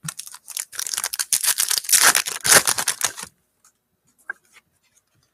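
Trading cards being opened and flicked through by hand: a rapid run of clicks and crinkling rustle for about three seconds, then only a few faint ticks.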